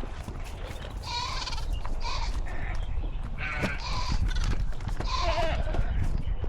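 A farm animal calling about six times in short, pitched cries, some rising and falling, over a steady low rumble.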